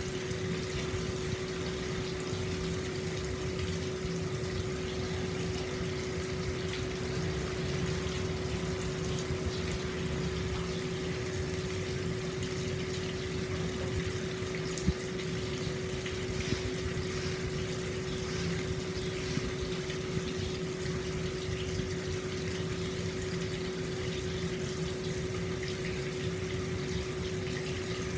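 Hot-spring water pouring steadily into an open-air bath, with a steady low hum underneath.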